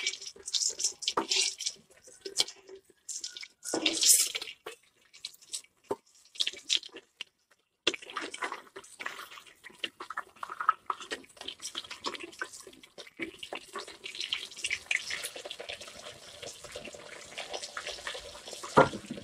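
Masala-coated fish shallow-frying in hot oil in a metal pan: the oil sizzles and crackles, with spoon strokes as hot oil is spooned over the fish. After about eight seconds the sizzle turns denser and steadier.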